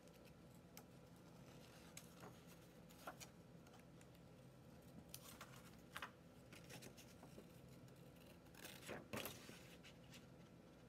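Scissors snipping through paper, faint, in short irregular cuts, a few a little stronger about nine seconds in.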